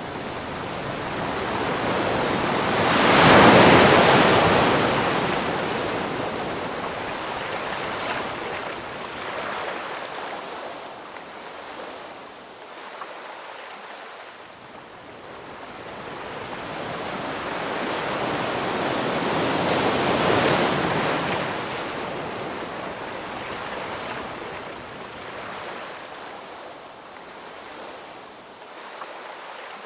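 Ocean waves breaking: one wave crashes about three seconds in and another about two-thirds of the way through, each building up and then washing back slowly, with a softer wash of surf between them.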